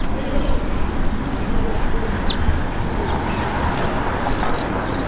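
Steady rumble of street traffic, with a few short, high chirps of birds over it.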